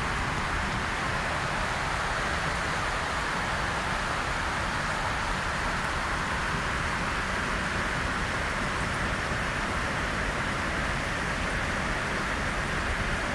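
A steady, even rushing noise that does not change, with no speech and no distinct events.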